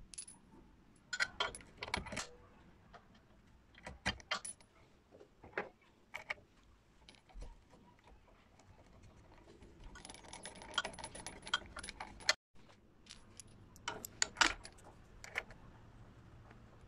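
Small metal parts or tools being handled: scattered light clinks and knocks, some in quick clusters.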